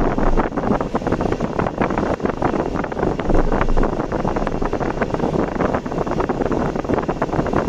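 Heavy, steady wind buffeting on the microphone with constant crackling, mixed with the noise of a vehicle travelling on the road.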